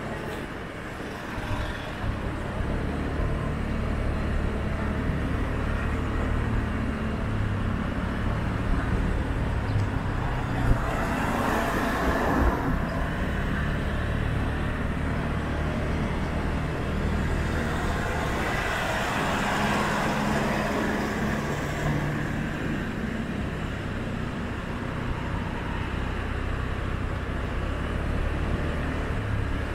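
Road traffic heard from a car driving through town streets: a steady low engine and road hum, with two louder swells of traffic noise, about ten seconds in and again around twenty seconds.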